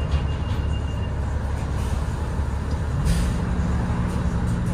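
Inside a 2021 Nova Bus LFS Hybrid transit bus on the move: a steady low rumble of drivetrain and road. About three seconds in there is a brief hiss, and a steady low hum sets in and holds.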